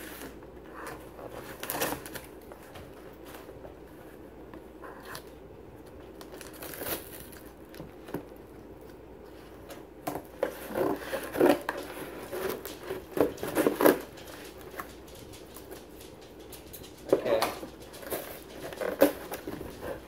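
Scissors and hands working at a taped cardboard shipping box: scattered scrapes, snips and crinkling, with louder bouts of packing tape and cardboard tearing about halfway through and again near the end.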